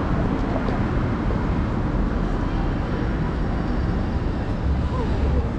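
City street ambience: a steady hum of traffic with faint voices of passers-by near the end.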